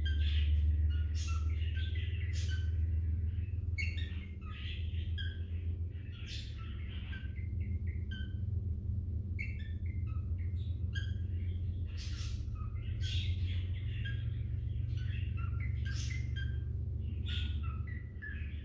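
Lineolated parakeet chattering: a long run of short, varied chirps and squeaks, a few each second, over a steady low hum.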